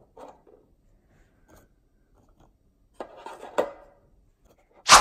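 Quiet handling as chocolate biscuits are set into a metal springform cake tin: a soft scrape and a light tap about three and a half seconds in. A sudden loud sound starts right at the end.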